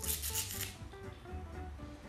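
Background music, a melody of short stepping notes, with a short crisp rustle in the first half second as a cavolo nero (lacinato kale) leaf is torn off its central rib by hand.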